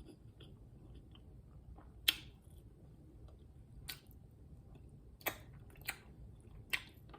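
Mouth sounds of someone eating close to the microphone: quiet chewing with a handful of short, sharp wet smacks spaced a second or so apart.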